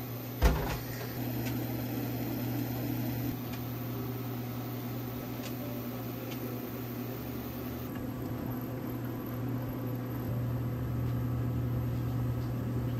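Steady low electrical hum of a running kitchen appliance over a faint even hiss, with a single sharp knock about half a second in.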